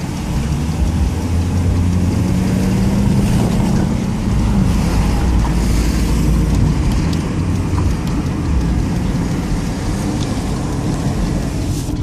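Steady engine and road rumble inside a moving car's cabin, with a pug's heavy breathing close to the microphone.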